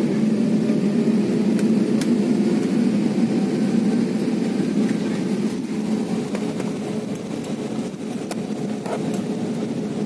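Airliner cabin noise as the plane rolls down the runway after landing: a steady engine and rolling hum heard from inside the cabin, growing gradually quieter as the aircraft slows, with a few faint clicks.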